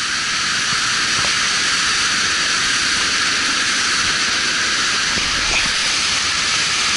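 Large waterfall heard from close to its plunge pool: a loud, steady, high hiss of falling water and spray.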